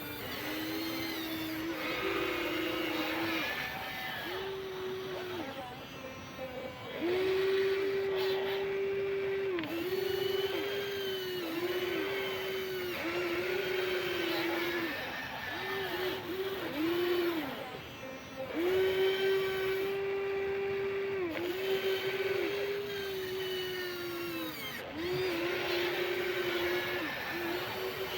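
Huina 1593 RC excavator's electric motors whining as its functions are worked, in repeated runs of one to three seconds that start and stop, the pitch dipping briefly each time a motor starts or stops.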